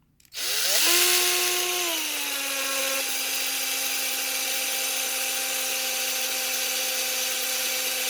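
Small electric drill spinning up with a rising whine, then settling slightly lower and running steadily as it drills out the rear rivet of a diecast car's base.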